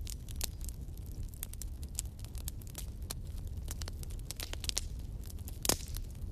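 Fireplace fire crackling: many sharp, irregular pops over a low, steady rumble, with one louder pop near the end.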